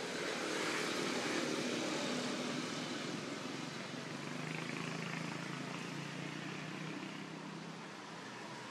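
A distant engine hums over a steady outdoor hiss, its pitch settling lower about halfway through.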